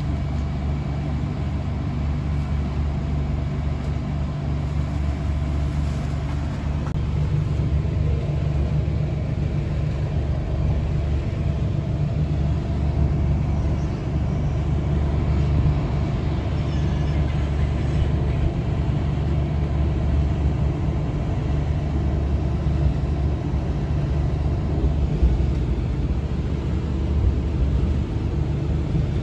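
Steady low rumble and hum inside an executive-class passenger car of the Mutiara Timur train as it pulls out of the station.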